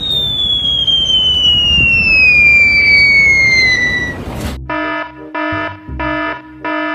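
A long whistle falling steadily in pitch over a hiss. About four and a half seconds in, a buzzy horn-like tone starts pulsing on and off at one pitch, about twice a second.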